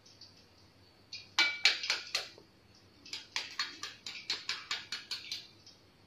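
A raw egg knocked against the edge of a metal spatula to crack its shell: a few sharp clicks about a second in, then a longer run of quick, lighter taps.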